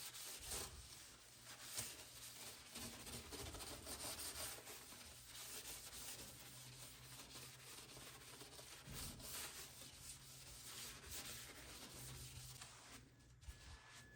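Faint scrubbing of a kitchen surface by hand: an irregular, scratchy rubbing made of many short strokes.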